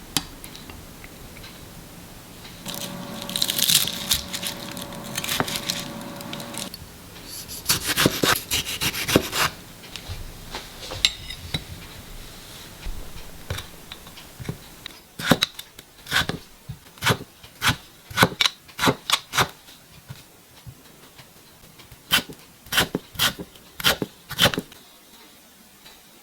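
Kitchen knife cutting food on a wooden cutting board: rustling and scraping first, then a run of sharp chops at about two a second in the second half.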